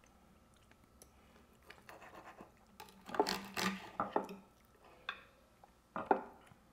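Cutlery clinking and scraping on plates as food is served and cut, with a few sharp clinks between about three and six seconds in after a quiet start.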